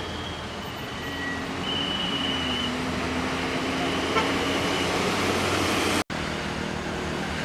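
Road traffic: a large vehicle's engine running with road noise, and a faint high steady whine that comes and goes. The sound drops out for an instant about six seconds in.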